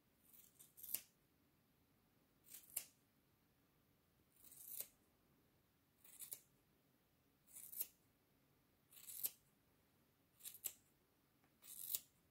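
Scissors cutting hair: eight slow snips about one and a half seconds apart, each a brief rasp of the closing blades ending in a sharp click.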